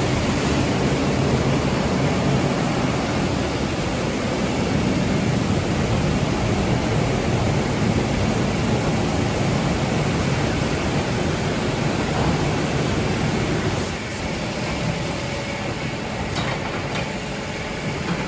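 Automatic rollover car wash running: a large rotating brush scrubs a car's body, with machine hum and the rush of brush and water making a steady loud noise. The noise eases slightly about fourteen seconds in.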